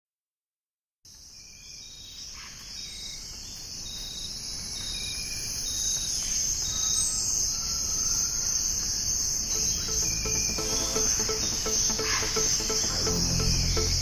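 After about a second of silence, a steady high-pitched insect trill fades in and grows louder, with scattered short chirps over it. About ten seconds in, music with a low pulsing beat joins under it.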